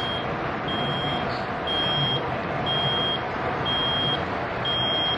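Coffee machine beeping an error alarm: a high-pitched beep about half a second long, repeating about once a second, over a steady noisy hum. The beeping is the sign of a fault in the machine.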